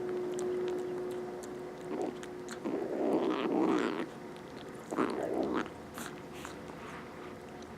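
Stray kittens growling over their food while eating: a long, even, low hum-growl, then two louder rough growls a couple of seconds apart, with small clicks of chewing.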